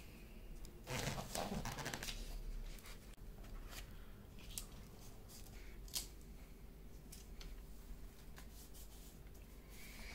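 Faint rustling of coloured paper and clear sticky tape being handled and pressed down by hand, with a louder crinkle about a second in and scattered small clicks after it.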